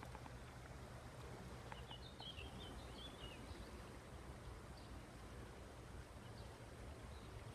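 Quiet outdoor background: a low steady rumble, with a bird chirping a quick run of short high notes from about two seconds in.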